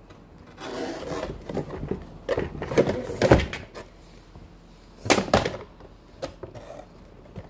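Handling noise: a padded coat sleeve rustling over the phone, with several knocks and bumps. The loudest knock comes about three seconds in, with another cluster about five seconds in.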